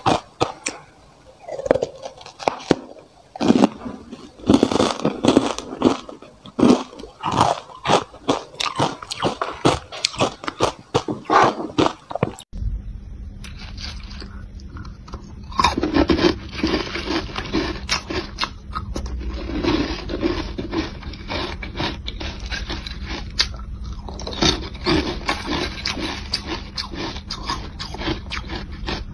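A plastic spoon scrapes and scoops through frozen, matcha-powdered ice in a plastic tub, with many quick scratchy clicks. About twelve seconds in, this gives way to ice cubes coated in matcha powder being bitten and crunched in the mouth, in repeated bursts over a low steady hum.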